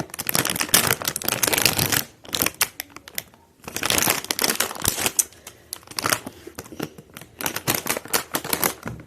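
Crinkling and tearing of a blind bag's packaging being pulled open by hand, in bursts of rustling with short pauses.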